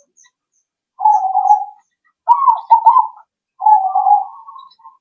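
Zebra dove (perkutut) singing its cooing song: three phrases of quick, rolling low coos, each about a second long, with short pauses between them.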